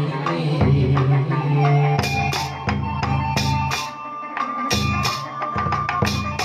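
Chầu văn instrumental passage: plucked lute notes over a pulsing low drum, with sharp, quick percussion strikes joining in from about two seconds in.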